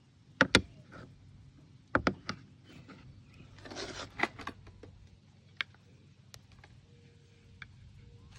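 Scattered sharp clicks and knocks from parts and tools being handled, with a short rustle about four seconds in.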